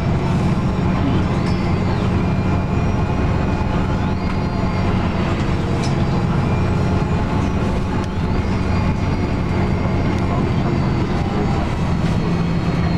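Inside a city bus: its engine and drivetrain running steadily with a low drone, under tyre and road noise as the bus drives along a mountain road.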